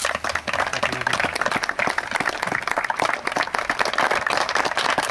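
Applause from a small crowd, many quick overlapping hand claps close to the microphone, starting abruptly.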